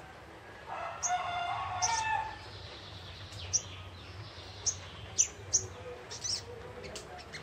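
A rooster crows once in the background early on, the loudest sound. Short, sharp, high-pitched chirps of a young sogon ijoan (sogok ontong) follow, scattered singly and in quick pairs.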